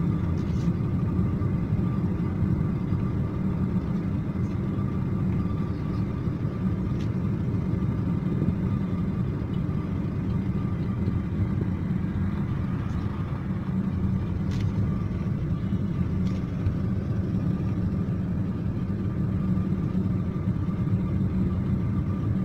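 Steady low rumble of a car's engine and tyre noise, heard from inside the cabin while driving slowly along a city street.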